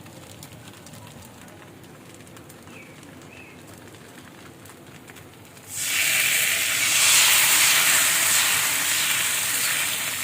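Hot dosa tawa sizzling: a faint sizzle, then about six seconds in a sudden loud hiss as thin neer dosa batter hits the hot greased griddle, easing slightly toward the end.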